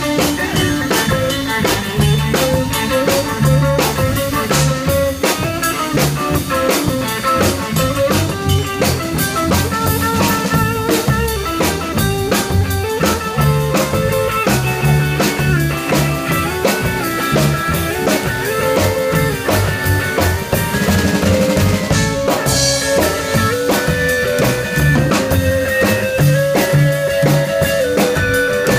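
Live band instrumental break with no singing: an electric guitar plays a lead line over upright bass and a drum kit keeping a quick beat.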